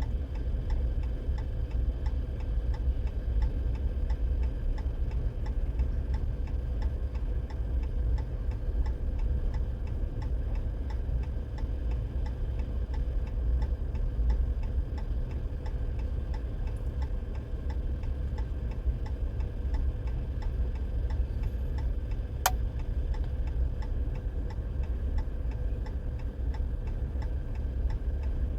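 Car's hazard-flasher relay ticking steadily inside the cabin over a continuous low rumble, with one sharp click a little past two-thirds of the way through.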